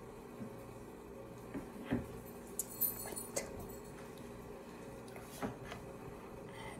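Small plastic Ultraman action figure being handled and fiddled with: a few light clicks and taps of its plastic parts, bunched in the middle, with a brief high squeak about three seconds in, over a faint steady hum.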